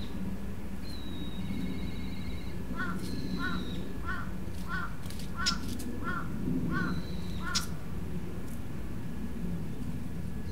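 A crow cawing about eight times in an even series, roughly one caw every 0.7 s. Another bird gives high whistled notes before and near the end of the series, over a low steady hum.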